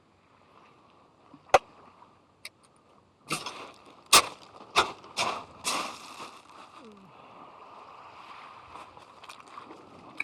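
A sharp click, then a quick run of about six sloshing, slapping strokes in under three seconds, over a steady soft wash of water.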